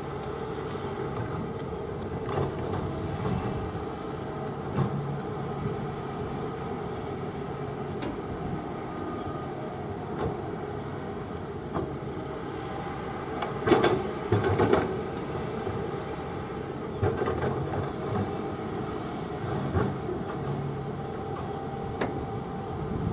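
Kobelco hydraulic excavator's diesel engine running steadily, with occasional metallic knocks and clanks from the working machine. The loudest cluster of clanks comes a little past the middle.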